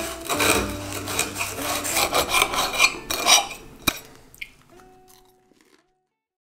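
Table knife sawing through crisp toasted bread on a plate, in repeated strokes. A sharp click comes about four seconds in, then the sound fades away to silence.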